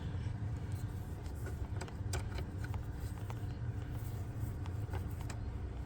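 Low steady rumble with scattered faint clicks and handling noises as a wiring connector is worked into place by hand.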